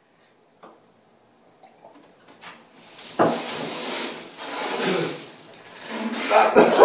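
Breathy spluttering and huffing through mouths full of dry, foaming Eno powder. It starts about two seconds in, after a few faint clicks of the mugs, and is loud from about three seconds on.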